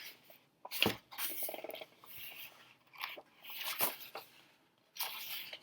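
Paper pages of a book's guidebook being turned and handled: short rustles with a few sharp clicks.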